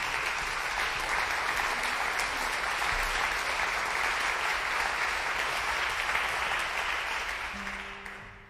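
Audience applauding steadily, the applause dying away over the last second. As it fades, a single low piano note starts and is held.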